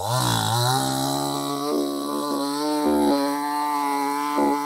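Two-stroke gasoline chainsaw revving up at the start, then running at full throttle as the chain cuts through a tree trunk, its engine note holding steady apart from a few brief dips.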